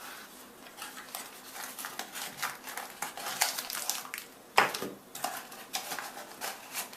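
Unpacking a Zippo hand warmer kit by hand: a string of clicks, taps and light clinks of packaging and small hard parts, with one sharper knock about four and a half seconds in.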